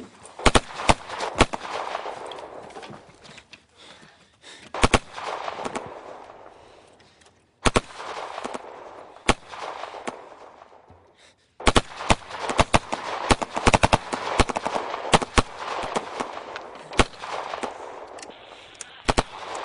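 Gunfire: scattered single shots and short bursts, turning into dense rapid strings of shots in the second half, each shot trailing an echo. It breaks off to silence briefly twice.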